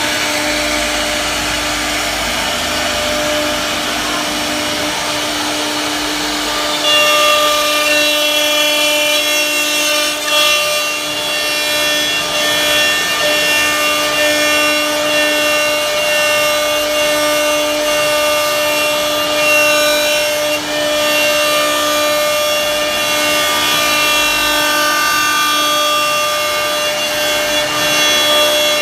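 CNC wood router: the spindle whines steadily while its bit cuts into wood with a rasping noise. About seven seconds in it gets louder and higher tones join the whine.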